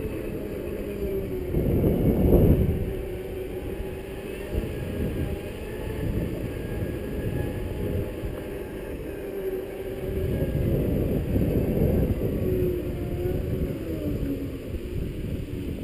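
Segway's electric drive whining as it rolls along, its pitch drifting slowly as the speed changes, over wind rumbling on the microphone. The wind surges louder about two seconds in and again near the end.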